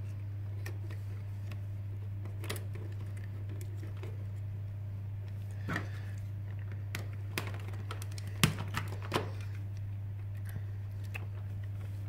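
Scattered small clicks and taps of plastic and wire as the cores of a Cat5e cable are pushed into the slots of a plastic network socket module, the sharpest click about eight and a half seconds in. A steady low hum lies underneath.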